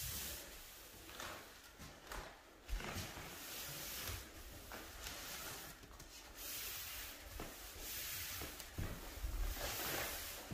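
A T-bar applicator pad swishing over a hardwood floor as it spreads a coat of polyurethane, in repeated soft strokes.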